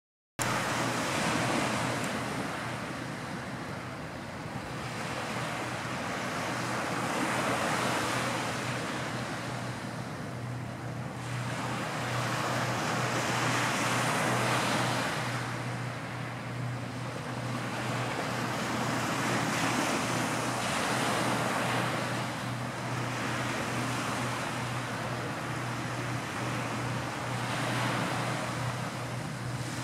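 Surf washing on the shore, a steady rushing that swells and ebbs every few seconds, over a steady low hum.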